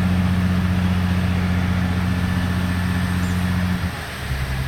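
An engine running steadily with a low hum; about four seconds in its note dips and then settles at a different steady pitch.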